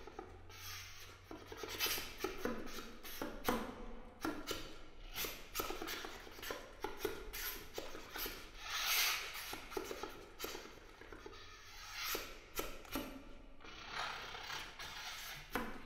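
Solo oboe played with extended techniques: quick clicking and breathy rushes of air, with only short pitched fragments. A louder rush of air comes about nine seconds in.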